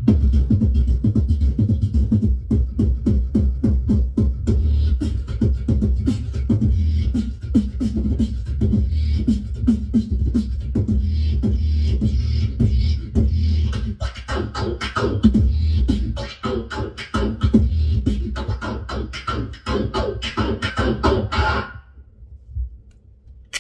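A beatboxer performing a beat into a handheld microphone: a steady rhythm of deep bass and sharp percussive strokes, with higher vocal sounds and hissing joining about halfway through. It stops abruptly a couple of seconds before the end.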